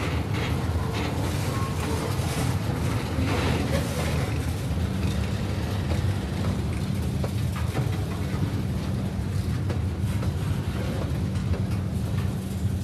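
Freight train cars, bulkhead flatcars and covered hoppers, rolling past on the track: a steady low rumble of wheels on rail with faint scattered clicks. A steady low hum joins about five seconds in.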